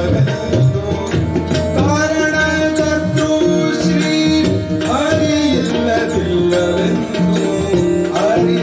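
Tabla and harmonium playing a Kannada devotional bhajan. Tabla strokes, with a few rising bass-drum glides, run over held harmonium notes.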